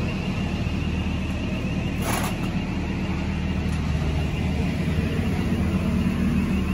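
Heavy construction machinery engine running with a steady low hum, with a short hiss about two seconds in.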